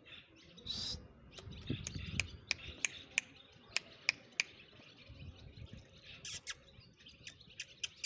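Small birds chirping in quick, short notes scattered through, with a few fuller chirps about a second in and again past the six-second mark. The peacock itself gives no call.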